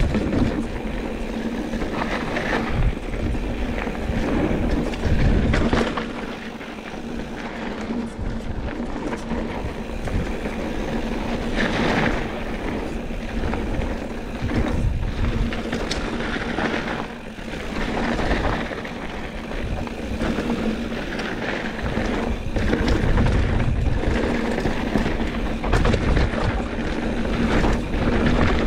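Mountain bike riding fast down a dirt singletrack: a steady rush of tyre and riding noise that swells and fades with speed, with occasional knocks and rattles as the bike goes over bumps.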